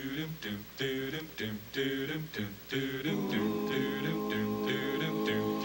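A cappella doo-wop vocal group singing: short rhythmic backing syllables over a bass voice, then a chord held steady in close harmony from about three seconds in.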